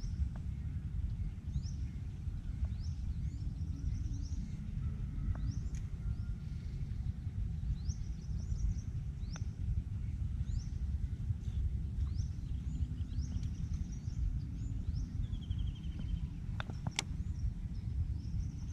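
Outdoor ambience: a steady low rumble with a bird giving short, high chirps about once a second. A brief falling whistle and a sharp click come near the end.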